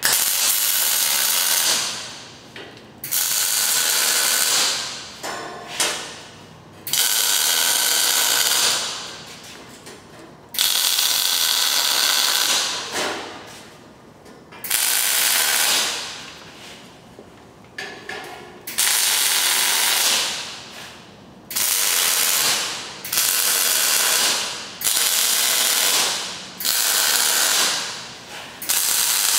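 Electric arc welding on steel grill bracing: a run of short welds, each one to three seconds of crackling arc that starts sharply and then stops, with brief pauses between them.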